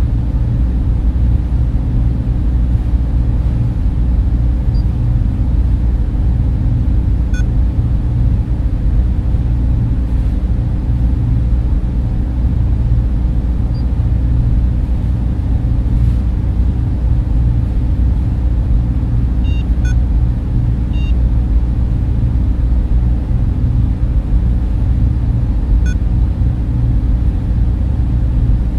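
Sci-fi spaceship interior ambience: a steady low machinery drone, like fans and motors, with a few faint electronic blips now and then.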